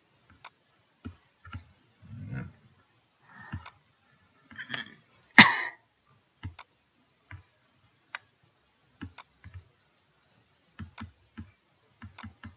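Computer mouse clicks, scattered single clicks with some quick pairs toward the end. In the middle a few short noisy sounds stand out, the loudest a brief burst about five and a half seconds in.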